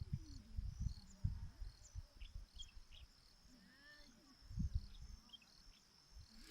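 Steady high-pitched insect chirring, like crickets, with scattered short bird chirps over it. Irregular low rumbles and thumps on the microphone are the loudest sound, strongest a little under five seconds in.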